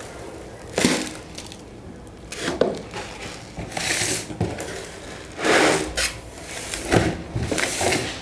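Sand being scraped and scooped in a cat litter tray, in irregular rubbing strokes every second or two.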